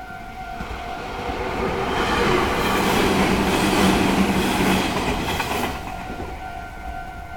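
Meitetsu 6500 series electric train passing over a level crossing: its running noise swells to a peak about two to five seconds in, with several wheel clacks over rail joints, then fades. The crossing's warning bell rings steadily underneath and is drowned out while the train goes by.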